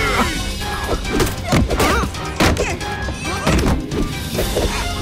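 Fight-scene music with a rapid series of sharp punch and whack sound effects, several hits a second or so apart.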